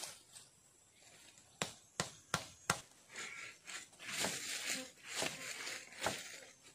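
Four sharp wooden knocks in quick succession as bamboo sticks strike each other. Then dry leaf litter rustles and crackles while a long bamboo pole is handled and laid across the trap's stakes.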